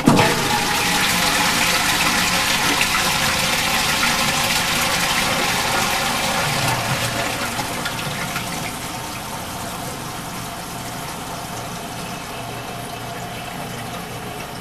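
A toilet flushing: a rush of water that starts abruptly, stays loud for about seven seconds, then falls to a quieter, steady run of water as the cistern refills.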